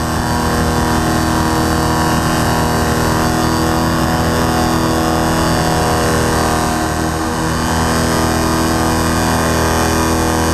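Paramotor engine and propeller running steadily at cruise power, heard up close from the onboard camera in flight, a constant engine note with wind noise.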